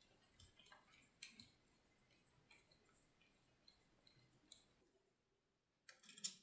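Faint scattered clicks and light taps of small PC hardware parts being handled and fitted, with a brief louder cluster of clicks near the end.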